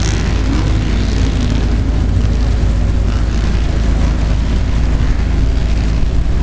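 Helicopters running on the ground, their engines and rotors making a loud, constant low rumble.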